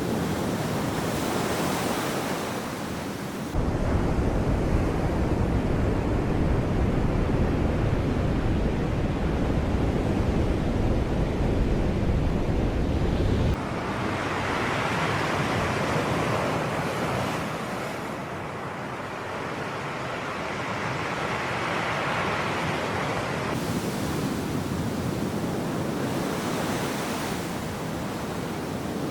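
Sea waves washing and breaking, swelling and ebbing in slow surges. A heavy low rumble, like wind on the microphone, starts suddenly a few seconds in and cuts off suddenly about halfway through.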